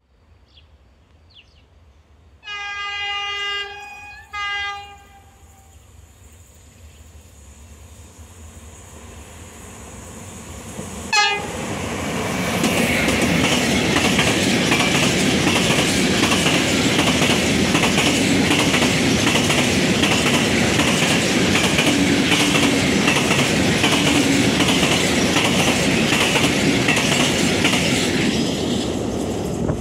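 Siemens ES64U2 (Taurus) electric locomotive sounding its horn twice, a longer blast then a short one, as it approaches. Its rumble builds to a sharp knock as it passes about eleven seconds in, then a long rake of empty freight wagons rolls by with a steady rhythmic wheel clatter that falls away near the end.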